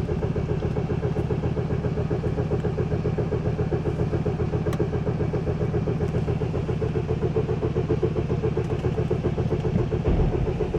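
Opel Vectra B 2.2 DTI four-cylinder turbodiesel idling steadily with a rapid, even firing beat, running after a hard-start problem suspected to lie in its Bosch VP44 injection pump.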